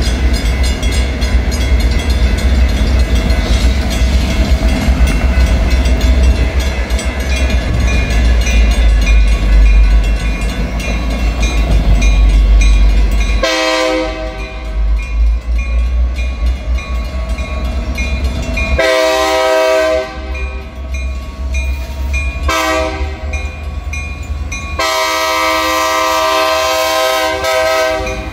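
EMD GP50 diesel locomotives working a freight train: heavy engine rumble with wheel noise. About halfway in the multi-note air horn starts sounding a series of blasts for a grade crossing, long ones with a shorter one near the end, over the continuing engine rumble.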